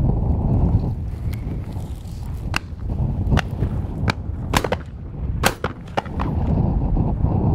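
Shotguns firing on a driven game shoot: a string of sharp shots, several close together in the middle, over gale-force wind buffeting the microphone.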